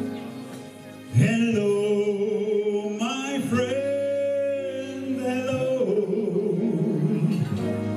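A male singer sings into a handheld microphone over backing music. His voice comes in loudly about a second in and holds a long note in the middle.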